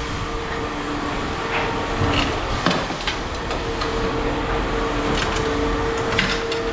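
Steady machine hum, like an idling engine or running compressor, with two held tones. Several short knocks are scattered over it.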